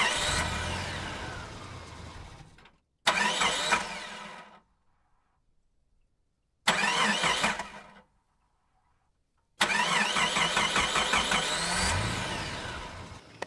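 An engine revving in four short bursts, each starting sharply and fading away, with silence between them.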